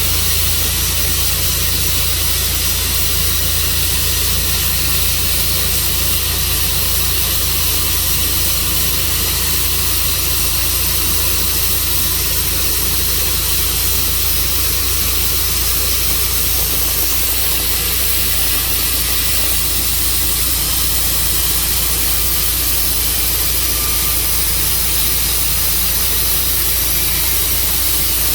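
Tru Cut sawmill running steadily, an engine with a constant hiss over it.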